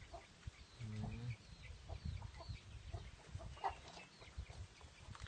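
Faint clucking and short high chirps from young chickens, with a brief low call about a second in.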